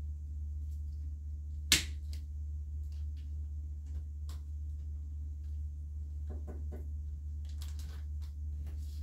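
Hand shears snipping woody antler reishi stems. One sharp snap about two seconds in, then faint clicks and rustles as the mushrooms are handled, over a steady low hum.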